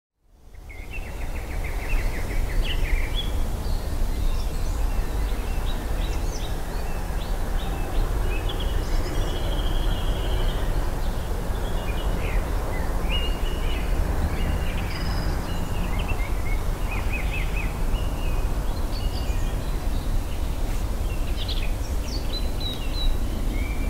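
Outdoor ambience of many birds chirping and trilling over a steady low rumble, fading in at the start.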